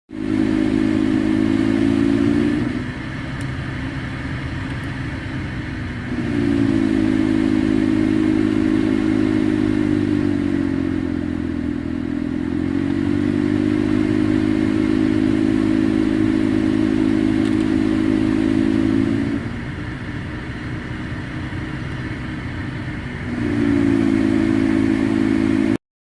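BMW F30 3 Series A/C blower motor running over a steady rush of air, with a loud droning hum that cuts in and out: on for the first couple of seconds, again for a long stretch in the middle that sags slightly in pitch partway through, and once more near the end. The hum is the noise fault of the blower motor.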